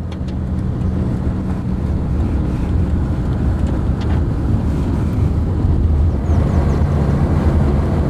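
A car driving steadily along a paved road: an even engine hum with road and wind noise.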